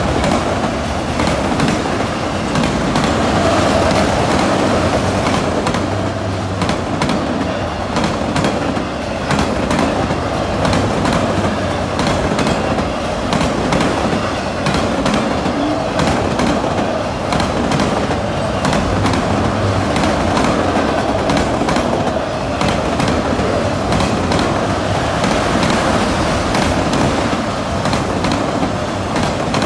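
Freight train's autorack cars rolling past: a steady rumble and rattle of steel wheels on rail, broken by frequent sharp clicks and knocks.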